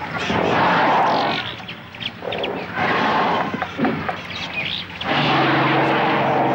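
African elephant cows trumpeting and screaming in a threat display, about three long, loud blasts. It is the alarm call of a family closing into a defensive circle around its calves.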